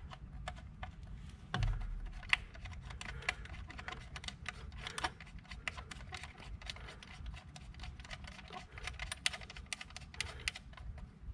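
Scattered light clicks and taps, with a dull bump about one and a half seconds in, as a J&L oil separator can and its mounting bracket are handled against the engine's intake manifold and the mounting bolt is started by hand.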